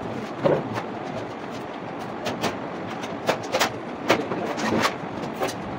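Irregular knocks and clatter of workers moving about and handling equipment, over a steady background rumble.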